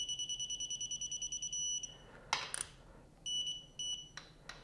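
Digital torque wrench beeping as the triple-clamp bolt reaches its set torque of 17 newton-metres: one high beep held about two seconds, a sharp click from the wrench, then two short beeps about a second later and a faint click.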